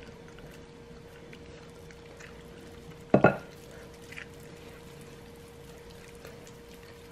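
Faint wet squishing of oiled hands rolling a raw ground beef and pork meatball, over a steady low hum. One brief loud sound breaks in about three seconds in.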